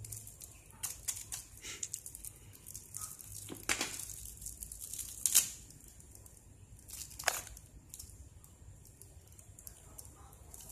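Clear plastic wrapping crinkling and rustling as a toddler handles it, in irregular bursts, the loudest about five seconds in and another about seven seconds in.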